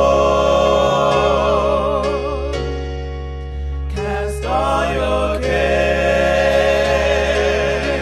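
Gospel singing: several voices hold long notes with vibrato over sustained keyboard chords and a steady bass. The voices drop out for about a second and a half midway, leaving the held chords, then come back in.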